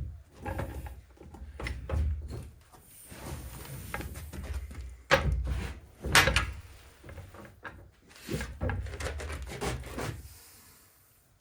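Clunks, knocks and scrapes of a heavy NV4500 manual transmission and its parts being handled and shifted on a work surface, with the two loudest knocks about five and six seconds in.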